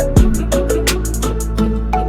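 Background music with a steady electronic beat: quick hi-hat ticks, a deep kick drum and short melodic notes.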